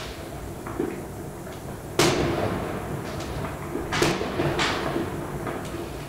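New Year's fireworks going off: a sharp bang about two seconds in, then two more around four seconds in, each trailing off in an echo, over a low background rumble.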